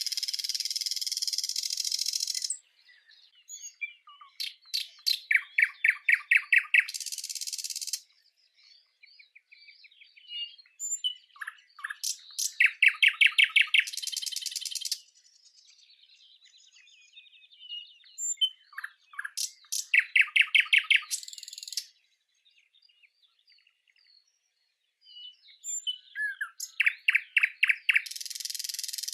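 A bird singing the same phrase over and over, about every seven seconds. Each phrase is a quick run of clear, evenly spaced notes that ends in a harsh, high buzz.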